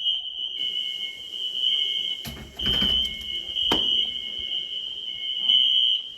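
Wheelock NS electronic fire alarm horn sounding a steady high-pitched tone, with a second, lower-pitched horn coming and going. A couple of thumps near the middle, and the horn cuts off right at the end.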